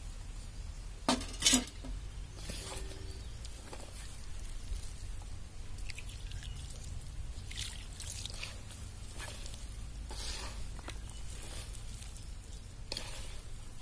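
A hand squishing and turning ivy gourd pieces coated in a wet flour and chilli-masala mix in a steel bowl, in soft irregular rustles. Two sharp knocks about a second in.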